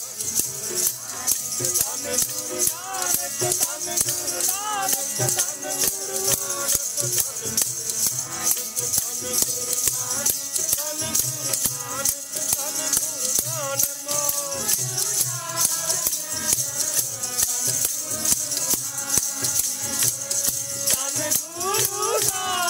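Sikh kirtan music: a fast, even jingling of metal percussion over a melody with some singing.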